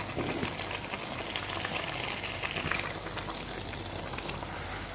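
Chicken, fenugreek and spinach curry sizzling and bubbling in a pan with a steady crackle, as chunks of raw potato are tipped in from a plastic colander. The hiss grows louder from about a second in for a second or two.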